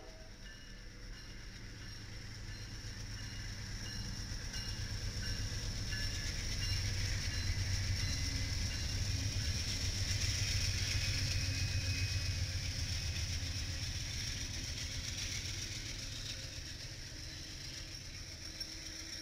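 Amtrak passenger train passing close by: the diesel locomotives' low engine rumble and the wheels on the rails build to a peak about halfway through, with a high steady whine on top, then ease off as the passenger cars roll past.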